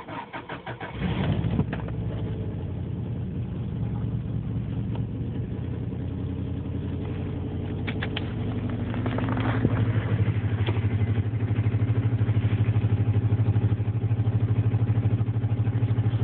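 Car engine cranked on the starter, catching about a second in and then running at idle. About ten seconds in the idle grows louder with a steady pulsing beat.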